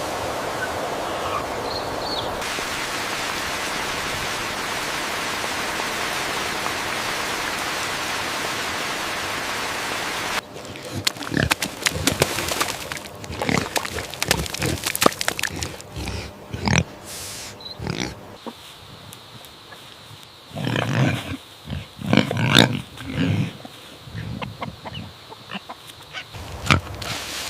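About ten seconds of steady rushing noise, then an abrupt change to pigs grunting in short, irregular bursts, with a cluster of deeper grunts a little past the middle.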